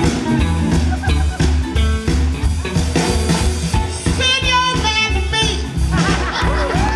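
Live electric blues band playing: a steady pulsing bass line and drums under electric guitar, with a woman singing into the microphone. Near the end, gliding wavering notes come in over the band.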